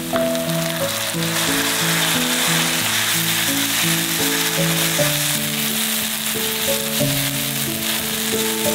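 Shredded cabbage and mushrooms sizzling in a hot nonstick frying pan, the sizzle growing louder just after soy sauce is poured in and staying strong. Background music with a simple stepping melody plays over it.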